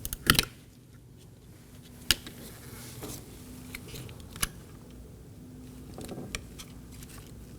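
Sharp plastic clicks as two wiring-harness connectors are unlatched and slid off the back of a car's master power-window switch, a few separate clicks spaced seconds apart, the loudest just after the start.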